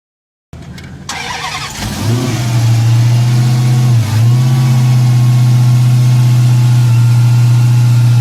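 Car engine cranking and catching, its revs rising and then held at a steady high pitch, with a brief dip and recovery about four seconds in.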